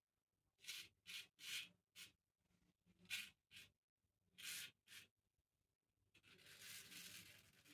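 Straight razor scraping through lathered stubble in short strokes, faint and crisp: about eight quick strokes, then a longer continuous scrape near the end.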